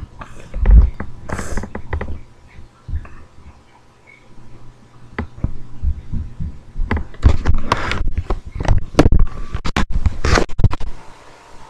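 Irregular thumps, knocks and scratching right at the microphone as the webcam is handled and bumped, coming thickest in a quick run of knocks in the second half.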